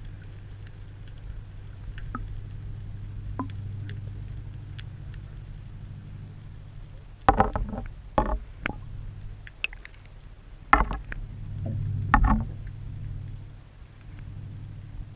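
Underwater camera audio: a steady low hum, with a cluster of sharp knocks and bumps about halfway through and two more loud knocks later on.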